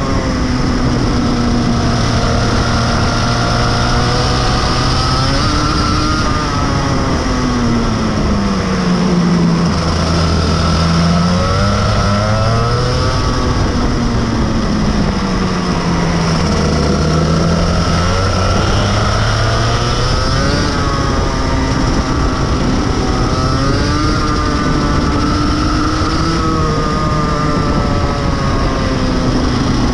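Rotax Max Evo 125cc two-stroke kart engine heard onboard, running hard through a lap: its pitch falls as the kart slows into corners, about a third of the way in and again just past halfway, and climbs back as it accelerates out along the straights.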